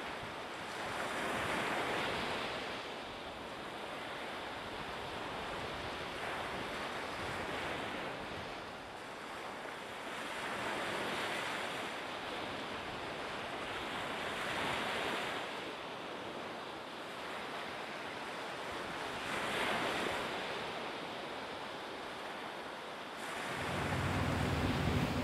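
Small waves washing onto a sandy beach, the surf swelling and easing every four or five seconds, with some wind on the microphone. Near the end, the low steady drone of the Enez Eussa III ferry's engine comes in.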